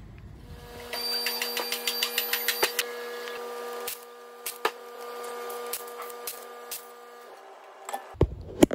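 Two-post car lift's electric motor and hydraulic pump running steadily for about seven seconds as it raises the car, with a fast run of clicks at first, then fewer. The lift stops near the end, followed by two or three sharp knocks.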